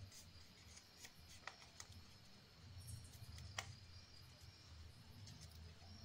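Near silence with faint rustling and a few soft clicks of paper being handled and creased while folding a paper airplane.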